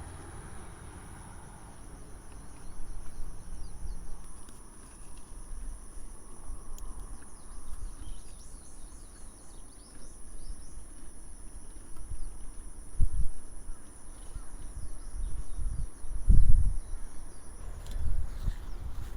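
Insects singing in a steady high-pitched drone with a fainter second trill beneath it, stopping shortly before the end. Several low thumps come in the second half, the loudest about three quarters of the way through.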